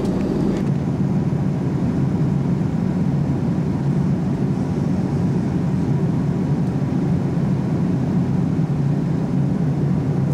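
Steady airliner cabin noise in cruise flight: an even, unchanging low rush of engines and airflow heard inside the cabin.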